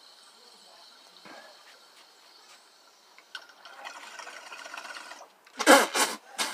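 Water bubbling in a glass beaker bong as smoke is drawn through it, starting about three seconds in and running for about two seconds, then a few loud sudden bursts near the end.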